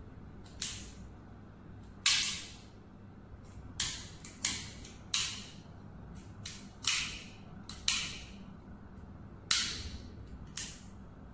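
Toggle handles of a miniature-circuit-breaker-style switch snapping on and off by hand: about ten sharp plastic clicks at irregular intervals.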